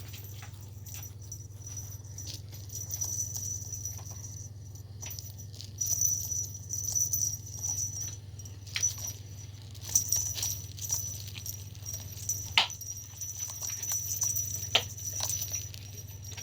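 A new cat toy running while a cat plays with it. A high thin whine or chirp comes and goes in stretches over a steady low hum, with a few sharp clicks and taps.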